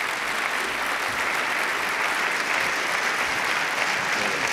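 Audience applauding steadily after a talk.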